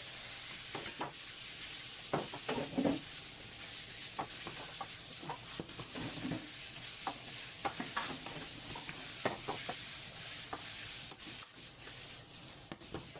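Pork frying in curry in a pan: a steady sizzle, with a utensil stirring it and knocking and scraping against the pan again and again.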